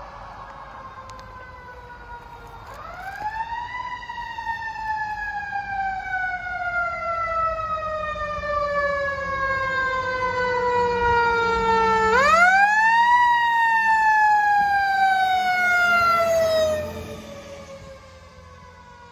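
Fire engine siren wailing. Twice it winds up quickly to a high pitch and then slowly winds down, growing louder as the truck comes closer, then it drops away sharply near the end.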